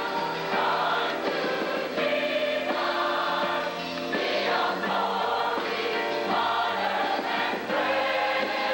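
Large mass choir singing a gospel hymn medley in full harmony, sustained phrases changing every second or two.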